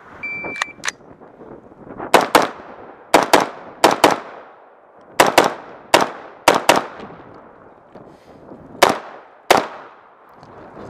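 A shot timer beeps once to start, then an AR-style semi-automatic rifle fires about a dozen shots, mostly in quick pairs, each shot trailing off in echo.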